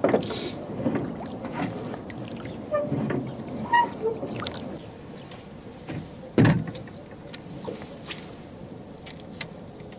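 A small fishing boat being handled on the water: scattered knocks and clicks with light water sounds. One louder thump comes about six and a half seconds in.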